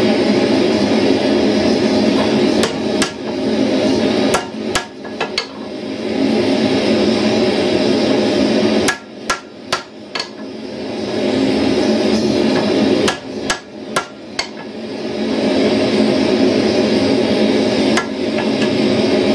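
Hand hammer striking red-hot steel tongs on an anvil in short groups of sharp blows: one about three seconds in, a quick run of four just after, four more around nine to ten seconds, another four around thirteen to fourteen seconds, and a single blow near the end. A steady background noise runs under the blows and dips briefly after each group.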